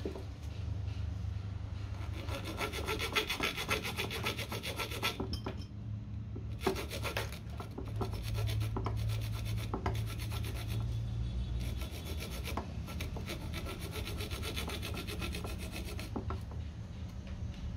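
Rapid back-and-forth hand scraping, an abrasive rubbed over a part in quick strokes, with a brief pause about five seconds in.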